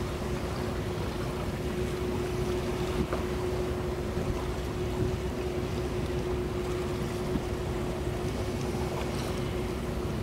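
Boat engine running steadily, with one constant hum over a low rumble, mixed with wind noise on the microphone.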